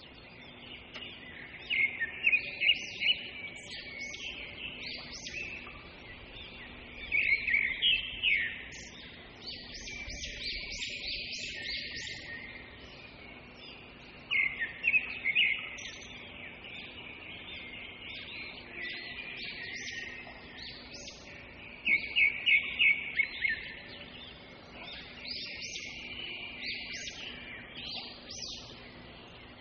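Birds chirping: continuous softer chirping, broken every few seconds by loud bursts of rapid sharp chirps.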